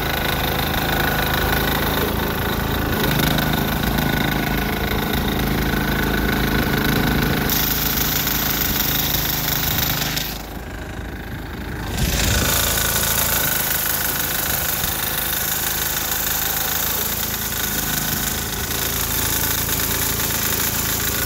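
Sears Suburban garden tractor's 6 hp single-cylinder diesel running steadily as it pushes a snow plow blade through heavy snow. About ten seconds in, the sound turns quieter and duller for a second or two, then comes back.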